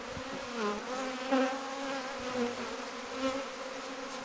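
Honeybees buzzing around an open hive as a bee-covered comb frame is worked over it, with single bees passing close by in wavering, gliding buzzes.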